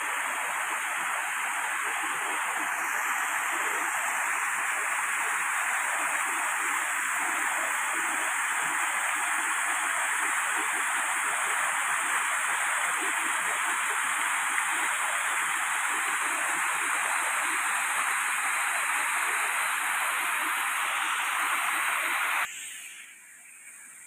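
Shallow monsoon stream rushing steadily over flat rock in small rapids, cutting off suddenly about two seconds before the end.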